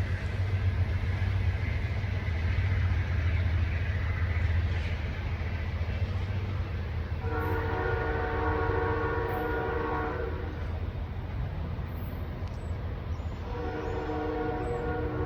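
Train horn sounding a chord of several tones in a long blast of about three seconds, then a second blast starting near the end, over the steady low rumble of a passing train.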